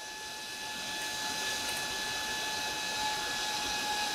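Four small computer cooling fans switched back on, getting louder over about the first second and a half, then running steadily with a whine and an airy hiss.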